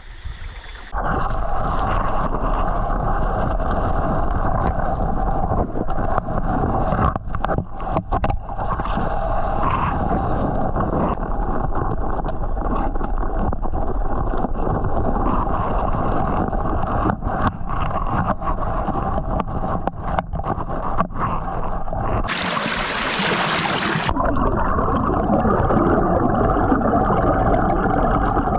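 Muffled underwater rumble and water noise picked up by a submerged camera in flowing floodwater, with scattered knocks and a short burst of hiss about three-quarters of the way through.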